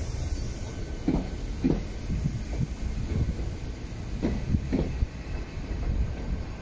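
Alstom Régiolis TER regional multiple-unit rolling past at moderate speed: a steady low rumble of wheels on rail, broken by pairs of clacks about half a second apart as the bogies cross rail joints.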